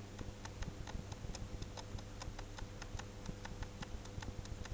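Electric potter's wheel spinning, with a steady motor hum and a rapid, regular ticking of about five clicks a second.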